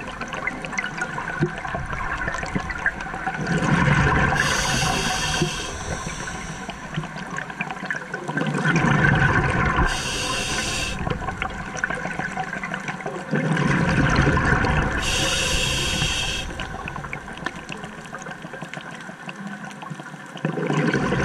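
Scuba diver breathing through a regulator underwater: a hissing inhale, then a low bubbling rumble of exhaled air, repeating about every five or six seconds over a steady watery wash.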